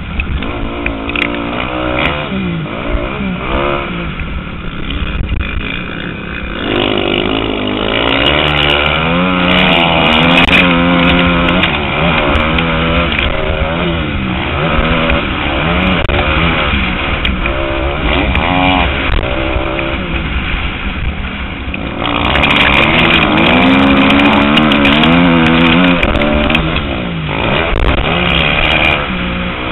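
Motocross dirt bike engine revving hard up and down through the gears at racing speed, its pitch rising and falling continually, heard close up from the rider's own bike. It is loudest in two stretches, about eight seconds in and again over the last third.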